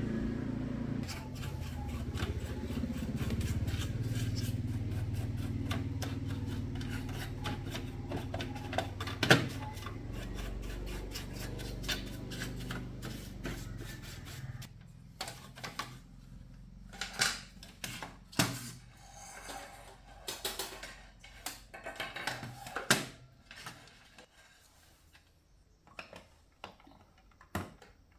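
Scattered clicks and knocks of small hard objects being handled, over a low steady hum that fades out about halfway through.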